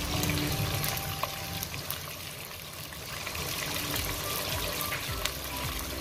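Blended shallot paste frying in hot oil in a stainless steel pot, bubbling and sizzling steadily with small pops as its water cooks off. It is the stage of cooking the paste down until it turns golden before the chilli goes in.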